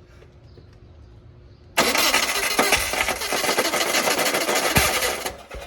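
Air-cooled VW Bus engine being cranked over by the starter for about three and a half seconds, starting suddenly and cutting off abruptly, during ignition troubleshooting at the coil.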